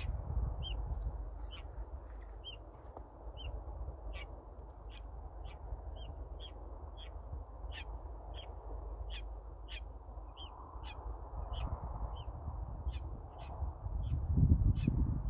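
A flock of birds of the crow family calling, short sharp caws repeating about twice a second. Under them is a low rumble that grows louder near the end.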